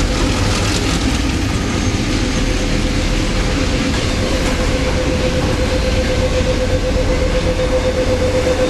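A China Railways DF11 diesel-electric locomotive and its passenger coaches running past close by: a steady rumble with wheel noise and some clatter in the first seconds. Under it runs a steady hum that grows a little louder near the end.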